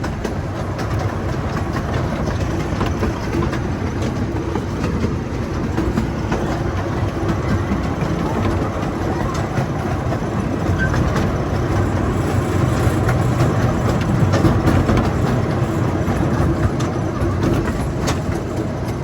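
Zoo train's passenger cars rolling along the track, a steady rumble and rattle heard from on board.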